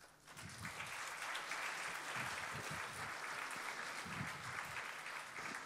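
Audience applauding, a steady spatter of hand claps.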